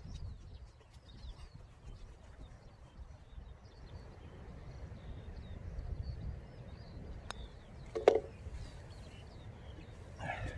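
Wind rumbling on the microphone, with small birds chirping. About seven seconds in, a putter taps a golf ball on a short putt, and under a second later the ball drops into the cup, the loudest sound.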